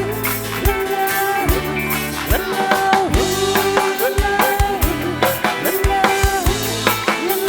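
Live band playing an instrumental passage: a drum kit keeps a steady beat of bass drum and snare under bass notes and a lead melody with bending notes.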